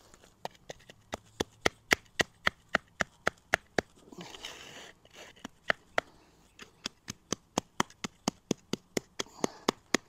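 Wooden hand float patting the damp surface of a dry-poured concrete slab: quick, even taps about three to four a second, with a short break about four seconds in. The float is pressing the misted dry mix flat and pushing the gravel down.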